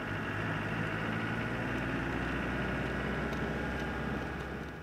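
Land Rover Defender 110 driving on a dirt track: steady engine and tyre noise, heard from a camera mounted above the bonnet. The sound cuts off abruptly right at the end.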